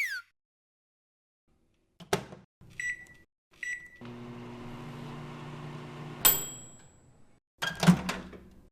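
Microwave oven in a use cycle. The door shuts with a click, two keypad beeps sound, and it hums steadily for about two seconds. It then stops with a ringing ding, and the door clatters open near the end.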